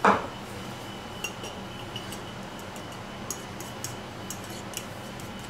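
A few faint, scattered clinks of a fork against a ceramic plate as a beaten egg with paprika is stirred, a second or so apart, over a faint steady room hum.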